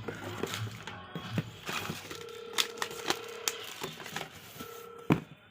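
Sharp mechanical clicks and rattles of a power tool being handled, with two short steady hums, the first about two seconds in and the second near the end, and a single loud knock just before the end. Faint background music underneath.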